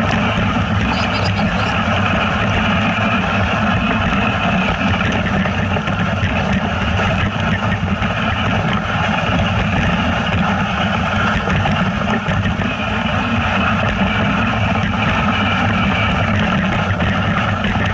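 A vehicle's engine running steadily, with dense noise of movement, loud and unbroken throughout.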